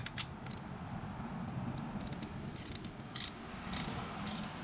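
Socket ratchet clicking in short, uneven runs as it is worked back and forth on a motorcycle's spin-on oil filter, snugging the filter down.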